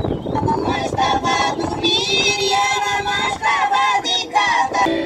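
A woman singing in a high voice, holding notes with a wavering vibrato.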